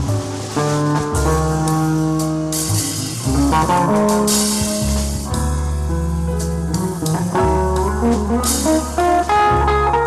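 Archtop electric guitar played as an instrumental passage: plucked chords and melody notes over a held low bass line that changes every second or so.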